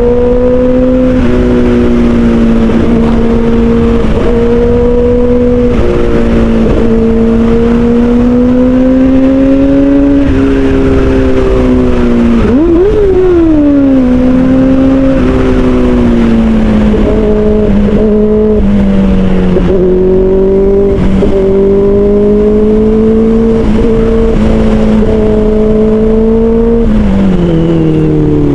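Kawasaki Ninja ZX-4RR's 399 cc inline-four running through an aftermarket Austin Racing muffler, holding steady revs at cruising speed with small rises and falls. About halfway through the revs flick up and drop back quickly, and near the end they step down as the bike slows.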